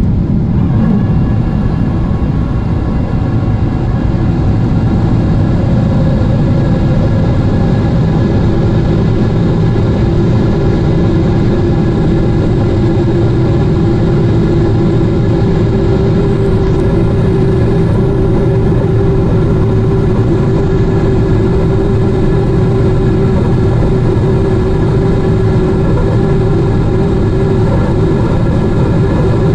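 Steady cabin noise of a Boeing 777-200ER in descent: an even rush of engine and airflow with several steady hums underneath.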